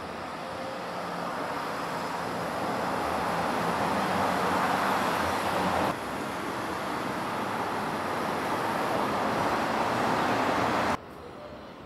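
A steady roar of passing vehicles that swells over several seconds, breaks off abruptly about halfway through, then swells again and cuts off sharply near the end.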